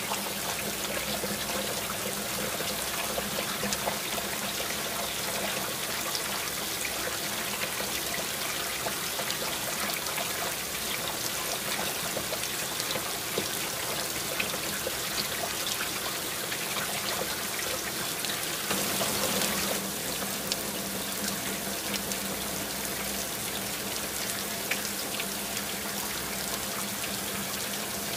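Heavy rain falling: a steady rushing wash of water, dotted with many small drop ticks. A faint steady low hum runs underneath, and the rain briefly swells louder about two-thirds of the way through.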